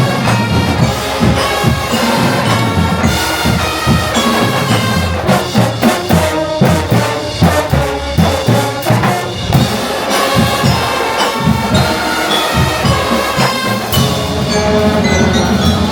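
Drum and bugle corps playing live: brass bugles hold chords over a steady beat on marching drums. About a third of the way in, the drum strokes come to the fore for a few seconds, and near the end the brass comes in fuller.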